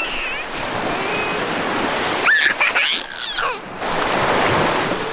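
Surf washing on a shore, a steady rush that dips and swells again a little before four seconds in. About two and a half seconds in comes a brief burst of high, sliding squeals or calls.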